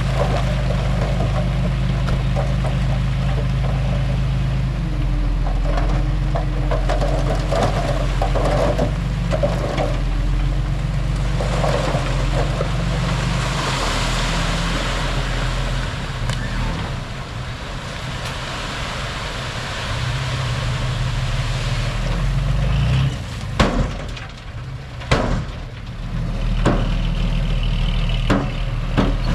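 Diesel engines of heavy earthmoving machinery running steadily, with the engine note shifting a few times. Several sharp knocks come near the end.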